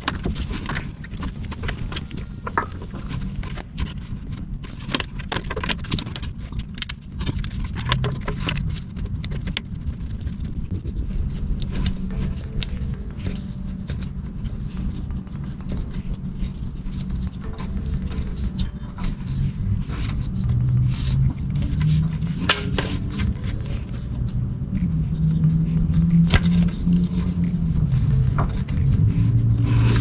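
Hand tools clinking and clicking against metal while the new clutch slave cylinder is bolted into place, a long run of irregular sharp clicks and knocks. Underneath is a steady low rumble that swells a little in the second half.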